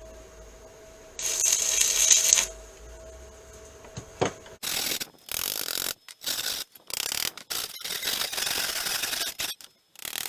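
A short burst of arc welding, a loud crackling hiss lasting about a second, patching a small burn-through hole in thin steel, over a faint steady hum. From about four and a half seconds in, a run of choppy scraping and rubbing bursts on the metal, stopping and starting abruptly.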